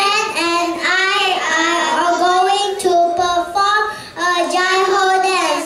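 Young children singing into microphones in long held notes, with a short break for breath about four seconds in.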